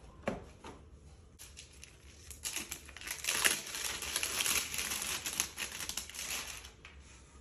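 Clear plastic wrapping crinkling and rustling as it is pulled off a new cricket bat's blade. It starts about a second in and goes on for several seconds.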